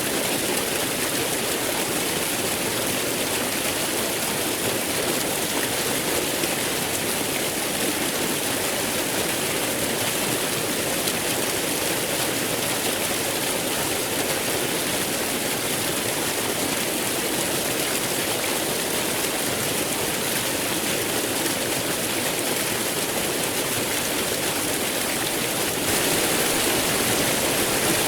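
Waterfall: water pouring and splashing in a steady, even rush that gets slightly louder near the end.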